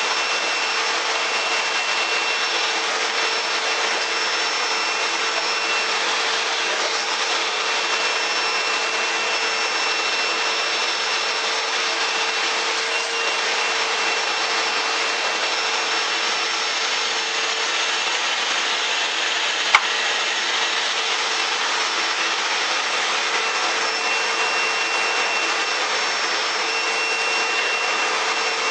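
Eureka 3670G canister vacuum cleaner running steadily, a constant whooshing hiss with a steady motor whine. There is a single sharp click about twenty seconds in.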